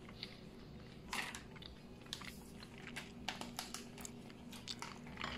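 Someone biting and chewing a slice of pepperoni pizza, with a scatter of soft crunches and small mouth clicks.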